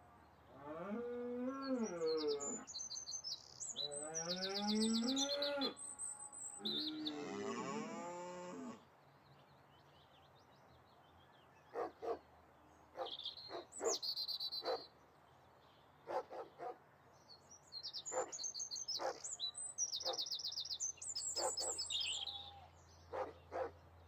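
Cattle mooing, three long calls one after another in the first nine seconds, each rising and falling in pitch. Birds chirp over them and go on chirping in short bursts through the rest.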